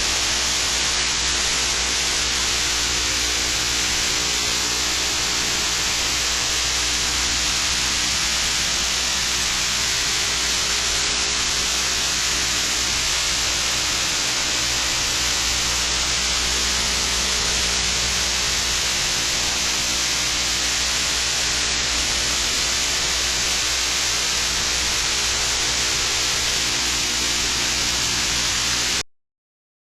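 Steady loud hiss with a low electrical hum under it, from a TV's audio fed into a computer's microphone input; it cuts off abruptly near the end.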